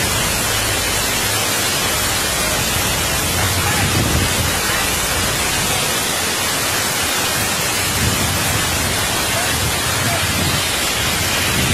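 Fast, muddy floodwater rushing across a road in a loud, steady, hissing torrent.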